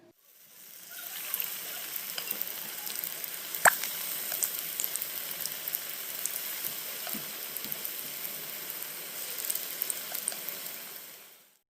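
Spoonfuls of wheat-flour and onion batter deep-frying in hot oil: a steady sizzle with many small crackles. There is one sharp click about a third of the way in.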